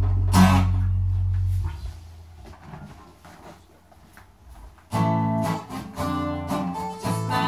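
Live acoustic guitar and bass guitar playing, with a sharp strum about half a second in. The held bass note dies away and the music drops almost to a pause for about three seconds. Then strummed acoustic guitar and a woman's singing come back in sharply about five seconds in.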